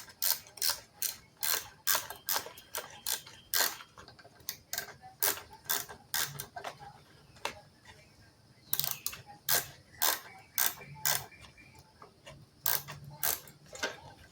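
Hand socket ratchet wrench clicking as bolts on a push-mower engine are tightened, about two to three clicks a second in runs with a couple of short pauses.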